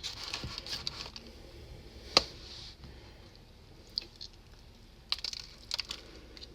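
Quiet, scattered clicks and taps of someone eating breakfast, close to the microphone: one sharp click about two seconds in, and a few quicker ones near the end.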